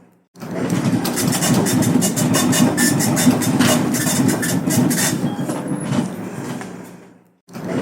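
Dot matrix printer printing: a dense, rapid mechanical buzz from the print head. It starts abruptly a moment in and fades out near the end.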